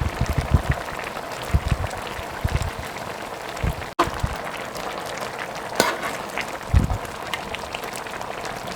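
Green chicken curry in coconut milk bubbling on the heat, a steady hiss with irregular soft plops and a few sharp knocks. The sound breaks off abruptly about four seconds in and picks up again.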